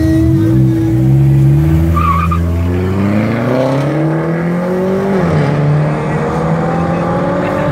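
Dodge Challenger and another car revving at a drag-race start line, then launching and accelerating hard away: engine pitch climbs steadily, drops at a gear change about five seconds in, and climbs again.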